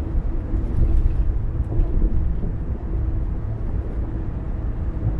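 Car driving at a steady speed: a continuous low rumble of road and engine noise with a faint steady hum.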